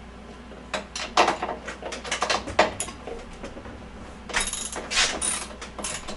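Hand ratchet wrench clicking in a few short runs of strokes, about a second in, around two seconds and again from about four seconds, as the bike's seat bolts are tightened.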